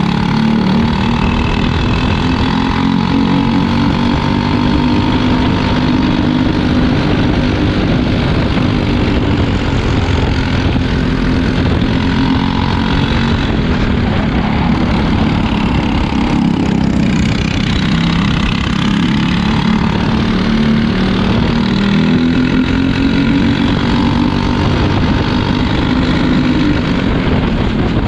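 Racing kart's Briggs & Stratton LO206 single-cylinder four-stroke engine at race pace, heard onboard, its pitch rising and falling repeatedly as the kart accelerates and slows.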